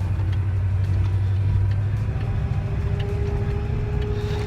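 Ford F-150 engine running with a steady low drone. About halfway through, a thin steady whistle sets in and holds, which the owner puts down to probably low coolant.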